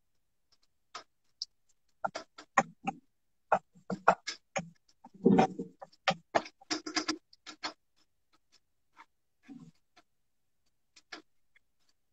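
Irregular clinks and scrapes of a spoon stirring in a cooking pan while ginger and garlic are sautéed, with a busier flurry about four to seven seconds in.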